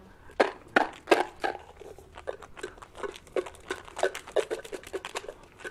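Paper rustling and crinkling: slips of paper for a prize draw being handled, giving a quick, irregular run of crackles and small taps.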